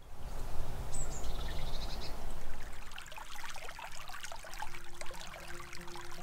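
Shallow stream babbling and splashing over stones, with a short high bird call about a second in. Music begins to come in near the end.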